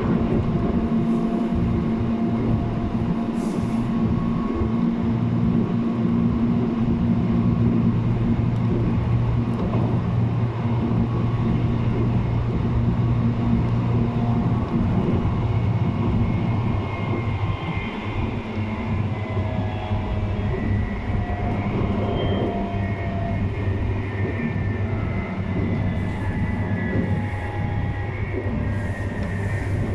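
Running noise of a JR East 719 series electric train heard from inside the car: a steady hum with faint whining tones that sink slowly in pitch in the second half. It is a unit singled out for its unusual running noise.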